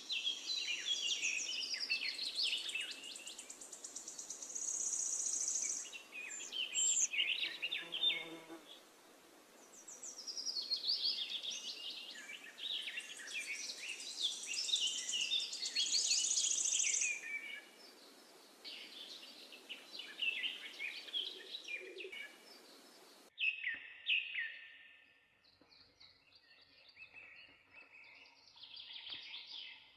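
Birds chirping and singing in runs of quick, high calls, twice with a long high trill, over a steady background hiss that cuts off suddenly later on.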